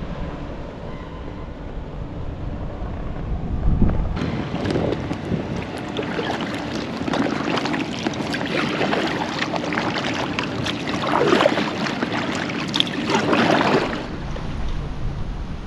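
River water splashing and lapping around kayaks, with wind rumbling on the microphone for the first few seconds. About four seconds in, the sound turns to a run of uneven splashes that stops about a second before the end.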